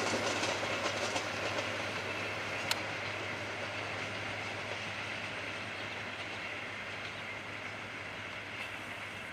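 Intercity passenger train's coaches rolling past on the rails, the sound slowly fading as the tail of the train moves away. One sharp click about two and a half seconds in.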